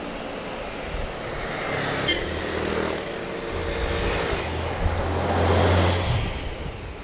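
Street traffic: a city bus and a scooter passing close, their engines' low drone swelling to its loudest about five to six seconds in and then fading away.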